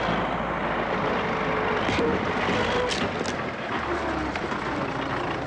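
A heavy vehicle's engine running, loud and steady, cutting in suddenly at the start.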